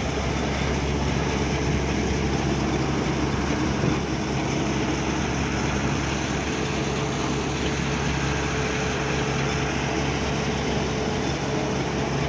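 An engine running steadily at an even speed, a low, unchanging hum.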